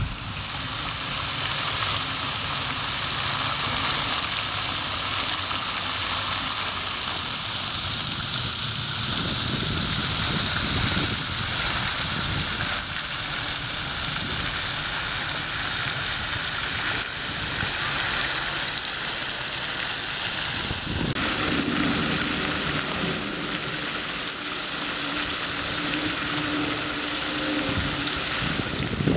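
Park fountain spray falling back into the pond: a steady, dense hiss like heavy rain, picked up close by a camera's built-in microphone.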